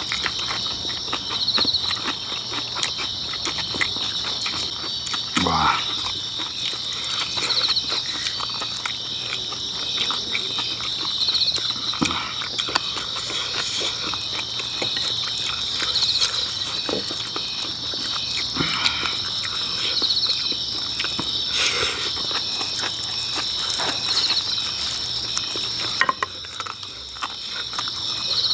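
A steady chorus of night insects chirping in a pulsing rhythm, with close-up chewing of kimchi and pork and light clicks of chopsticks on dishes.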